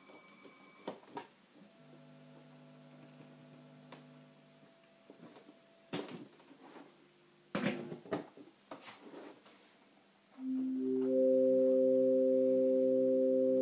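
Scattered clicks and knocks from handling the breadboarded boards and leads, with a faint steady pair of tones held for a few seconds. About ten seconds in, a polyphonic Mozzi synth running on a SAMD microcontroller board, played from a USB MIDI keyboard, sounds a chord: its notes come in one after another, then hold steadily, much louder than anything before.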